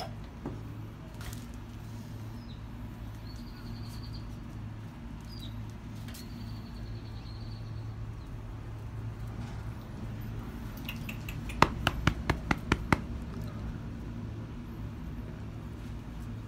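Bull terrier puppy chewing dry dog food, a quick run of about eight sharp crunching clicks near the end, over a steady low hum. A few faint high chirps sound earlier.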